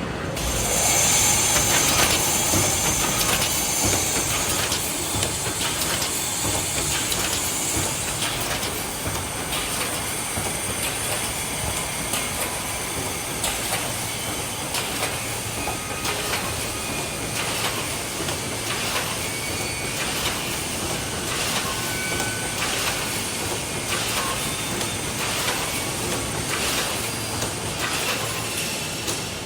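Automatic wire mesh welding machine running, with a strong air hiss for the first several seconds. After that comes a steady clatter of repeated clunks as the machine cycles through its welding strokes.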